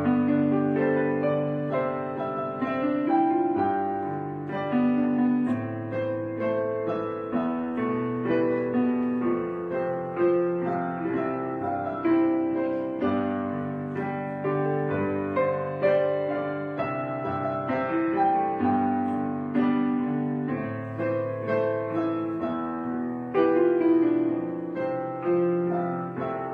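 Background piano music: a slow, gentle piece of single notes and chords, each struck and left to fade.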